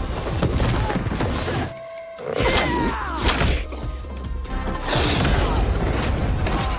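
Film action soundtrack: dramatic score under fight sound effects, with heavy thuds and crashes. The sound drops away briefly about two seconds in, then the hits resume.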